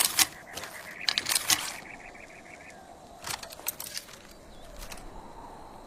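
Bow and arrow being handled and shot: sharp clicks and snaps in three clusters, at the start, about a second in and about three seconds in. A faint wavering tone sounds between the first two clusters and shortly after.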